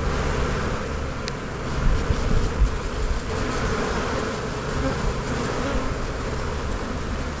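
Honey bees buzzing steadily in large numbers around an opened hive, stirred up as its honey frames are handled, with a low rumble underneath.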